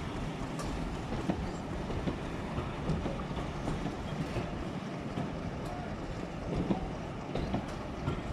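A diesel-hauled passenger train passing along the platform: a steady low rumble, with wheels clicking over rail joints now and then.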